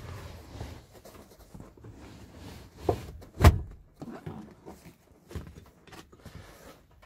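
Handling noise as the Opel Adam's rear seatbelt is pulled out from beside the seatback: rustling of the webbing and hand against the seat and trim, with a soft knock and then a sharp knock about three and a half seconds in.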